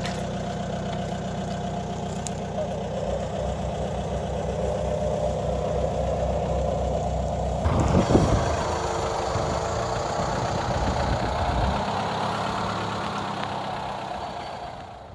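1989 Mitsubishi Pajero's engine running steadily. About eight seconds in it gives way to the Pajero driving through mud, louder and rougher, which fades away near the end.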